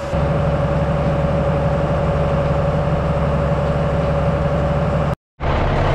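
Tractor engine running steadily, with a steady whine above it, as it drives the manure pit pump through the PTO to load a manure tanker. The sound cuts out completely for a moment about five seconds in.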